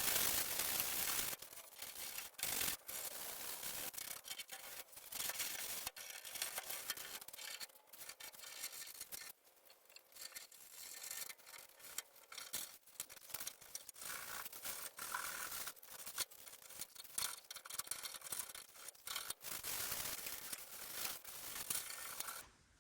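Sandpaper rubbed by hand over the Jeep's metal body panel, in uneven scratchy strokes with short pauses.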